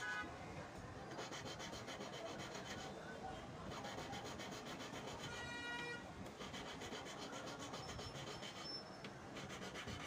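Small hand file rubbing back and forth over the edge of a white gold ring band, a steady rasping of metal on metal.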